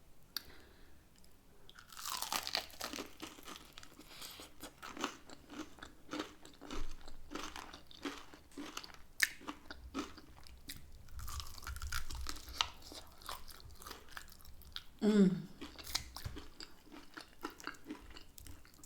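Close-miked chewing of hot and spicy chicken wings: many short crunches and wet mouth clicks as the meat and skin are bitten and chewed. A brief hummed vocal sound comes about three-quarters of the way through.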